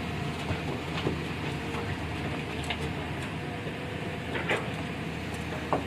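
Engine of heavy road-construction machinery running steadily, with a few short sharp knocks or clanks, the loudest near the end.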